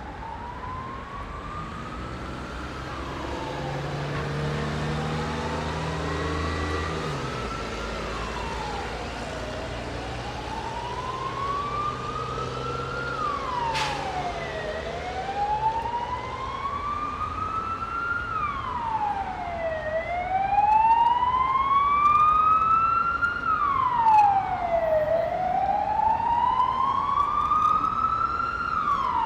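Emergency vehicle siren wailing in slow cycles, each rising over a few seconds and dropping back quickly, growing louder as it approaches. Underneath is the steady rumble of heavy city traffic.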